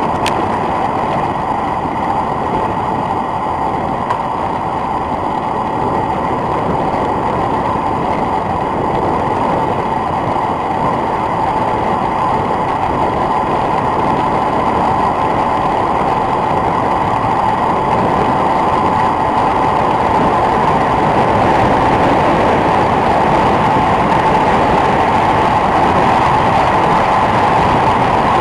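Steady wind rushing over the camera microphone of a road bike descending at speed, growing slightly louder toward the end as the bike gathers speed.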